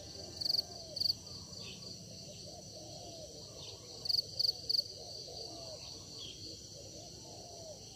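Field insects, crickets among them, calling in a steady high chorus. A few louder chirps stand out, two in the first second and three in quick succession about four seconds in, over many lower chirping calls.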